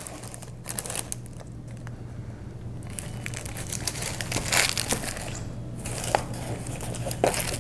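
Shredded paper filler and tissue paper rustling and crinkling as hands move through a cardboard gift box, in uneven spurts with small clicks and a quieter stretch about two seconds in.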